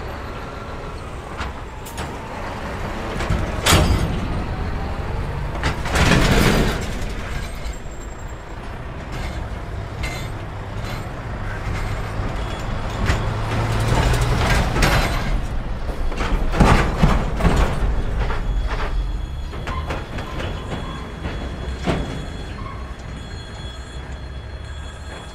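Heavy semi-trailer trucks driving one after another over a railway level crossing: diesel engines running with a steady low hum, and several loud bangs and clatters as their wheels go over the rails, about 4, 6, 14 and 17 seconds in.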